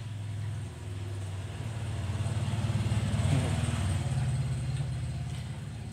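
Low engine hum of a road vehicle, swelling to a peak about three seconds in and then fading.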